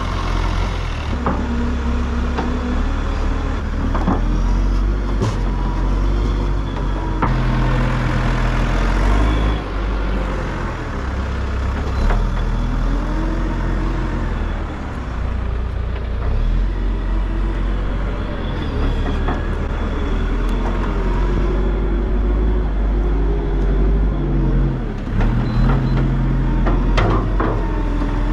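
Tractor engine running continuously, its revs rising and falling several times as it works, with a few sharp clicks and knocks, most of them near the end.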